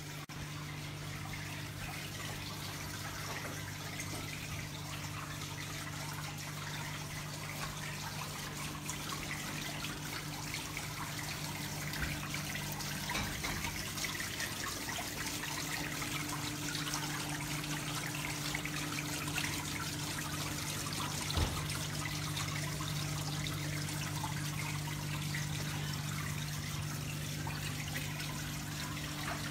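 Indoor wall waterfall running: a steady sheet of water trickling and splashing down the panel, over a steady low hum. A single short knock about two-thirds of the way through.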